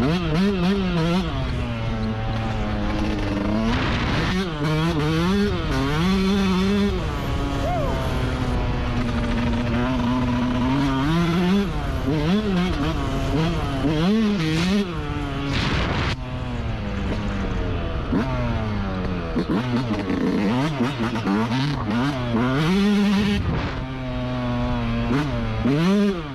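Yamaha YZ125 two-stroke single-cylinder dirt bike engine revving up and down as the bike is ridden, its pitch climbing and dropping over and over with shifts and throttle changes.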